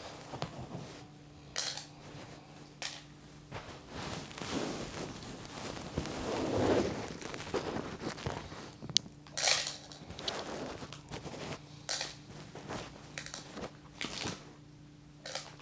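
Chickens pecking at scattered corn kernels: irregular sharp pecks and rustling, denser in the middle, over a steady low hum.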